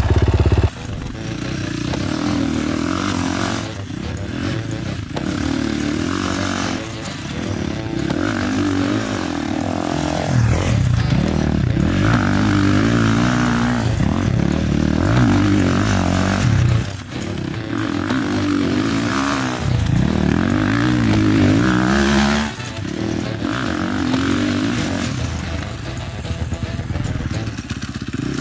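Dirt bike engine revving hard and backing off again and again as the rider accelerates into a corner, brakes and turns, its pitch rising and falling with the throttle.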